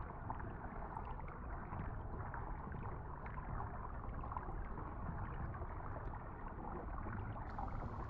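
Steady rumble of a wildebeest herd stampeding over dry, dusty ground, many hooves blurring into one dull noise.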